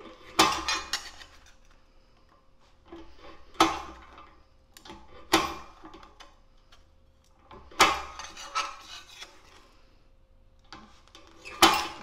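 Hand-lever bench shear cutting steel sheet in short strokes: five sharp metal snaps a few seconds apart as the blade shears through, with fainter clinks between as the piece is turned.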